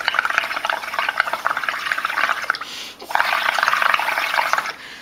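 Blowing through a plastic drinking straw into a bowl of tempera paint mixed with soapy bubble solution: a rapid, bubbling gurgle as the foam builds, in two long breaths with a short pause about three seconds in.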